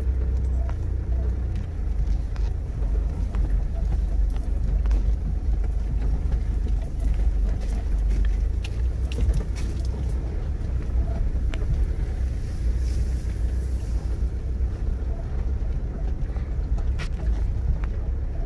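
Mitsubishi Pajero V80 driving slowly off-road, heard from inside the cabin: a steady low engine and drivetrain rumble, with scattered light clicks and ticks.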